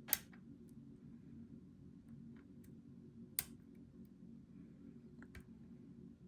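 Lock picks clicking against the pins inside a Goal V18 lock as it is picked: two sharp clicks, one at the start and one about three and a half seconds in, with fainter ticks between, over a steady low hum.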